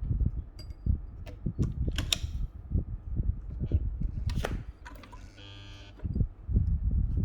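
Singer 328P sewing machine stitching at speed, a fast run of low thumps with a few sharp clicks. About five seconds in the stitching stops for a second while a buzzing tone sounds, then the machine starts stitching again.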